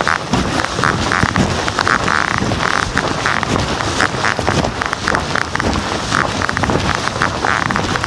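Footsteps crunching in snow at a steady walking pace, about one step every two-thirds of a second, over a constant rough noise.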